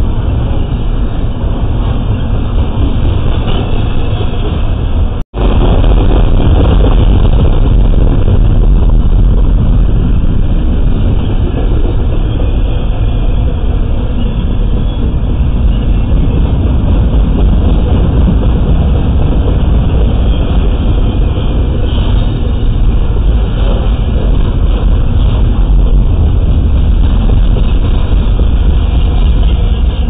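Double-stack intermodal container well cars of a freight train rolling past: a loud, steady rumble and clatter of steel wheels on rail. The sound cuts out for a split second about five seconds in.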